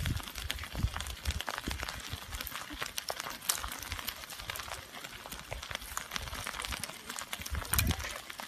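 Pahoehoe lava's cooling, glassy crust crackling and snapping in many irregular small clicks as the molten lobe pushes forward and splits its skin. Low thumps come and go underneath, the loudest near the start and near the end.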